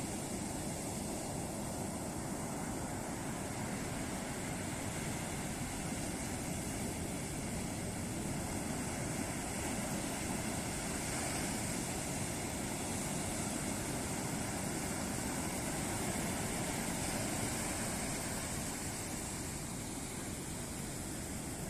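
Ocean surf washing steadily onto a beach, a continuous roar of breaking waves that swells a little about halfway through and eases near the end.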